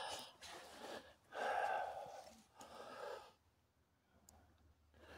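Faint breaths close to the microphone: a longer exhale about a second in and a shorter one near three seconds, then near silence.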